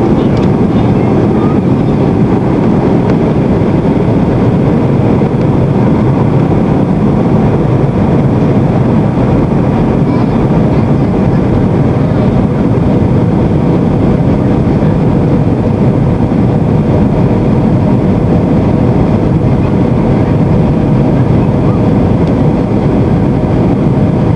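Steady cabin noise inside an Airbus A320 in flight: the constant rush of engines and airflow heard from a window seat, with a faint steady hum.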